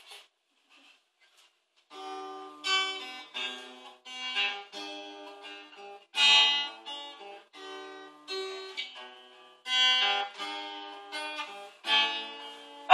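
Acoustic guitar playing a chord intro, picked and strummed note by note, starting about two seconds in.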